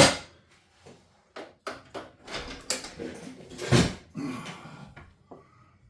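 Metal parts and tools being handled on a workbench during a chainsaw teardown: a sharp clack at the start, scattered small clicks and clatters, and a heavier clunk near four seconds in.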